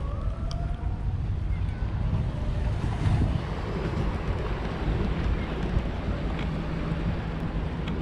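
Wind buffeting the microphone: a steady, heavy low rumble, with a few faint gliding whistles near the start.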